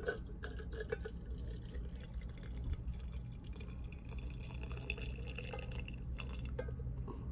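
Hot water poured in a thin stream from a small pot into a stainless steel vacuum flask, with a few light clicks near the start and a steady filling tone through the middle.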